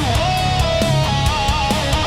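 Heavy metal music: a lead electric guitar playing a sustained, bending melody over distorted rhythm guitar and fast drums.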